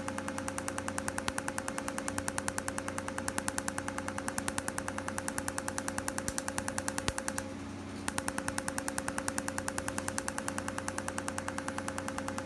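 Cutera enlighten picosecond laser handpiece firing rapid, evenly spaced pulses, each a sharp snap against the skin: the crackling of pigment being treated. A steady hum from the laser unit runs underneath. The pulses stop for under a second about two-thirds of the way through, then resume.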